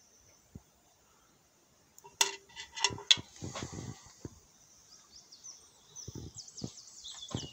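A few sharp knocks and clicks of handling from about two seconds in. Then, from about five seconds, a small bird chirping in quick, high, repeated notes.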